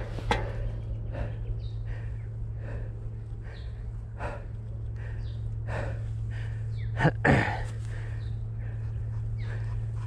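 Heavy rhythmic breathing, short puffs about every half second, over a steady low hum, with a sharper, louder double sound about seven seconds in.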